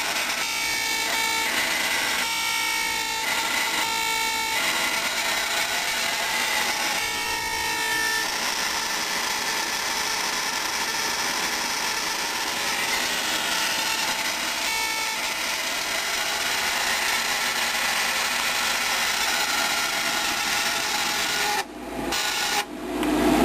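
Furnace fan running with a continuous scraping, rasping noise, with squealing tones coming and going over the first several seconds. The owner suspects the fan blade is out of whack and hitting its casing.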